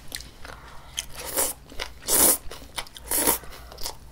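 Close-miked eating sounds: chewing and slurping spicy noodles, with three louder noisy bursts, the longest about two seconds in.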